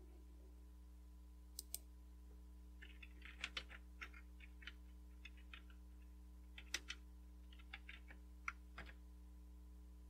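Typing on a computer keyboard: about a dozen separate keystrokes at an uneven pace, entering a short terminal command and Enter, preceded by a pair of sharp clicks about one and a half seconds in.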